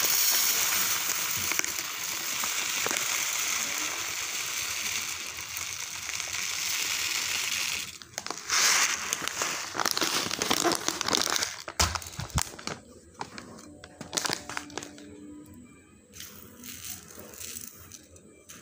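Raw basmati rice poured from a plastic bag onto a steel plate: a steady hiss of grains streaming onto the metal for about eight seconds. Then louder crinkling of the plastic bag and irregular clicks of grains, thinning to scattered clicks toward the end.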